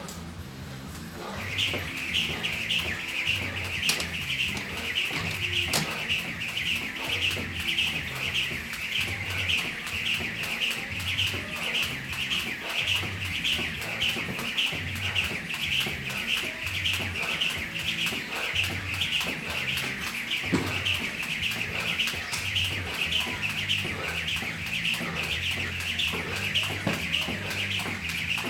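Speed jump rope whirring through the air, a high-pitched swish that repeats about two to three times a second, starting about a second and a half in.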